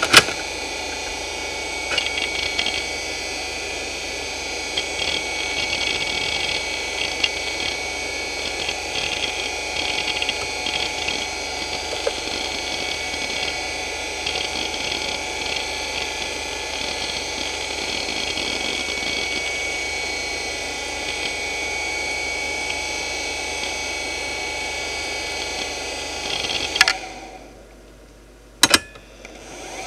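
Hitachi DK225A-14 2.5-inch IDE hard drive running: a steady high spindle whine under irregular bursts of clicking and chattering from the read/write head seeking. About 27 seconds in the sound drops away abruptly for a couple of seconds, with one sharp click, then comes back.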